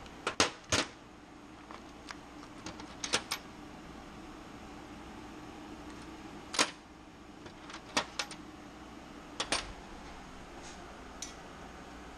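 Steel hex keys and screwdrivers clinking against each other and the toolbox drawer as they are rummaged through, about ten short, sharp metal clicks in small clusters over a faint steady hum.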